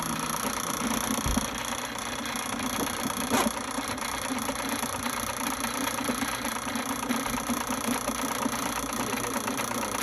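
Motorized drain-cleaning machine running steadily with a mechanical hum and rattle as its line works down a clogged sewer pipe, with a single knock about three and a half seconds in.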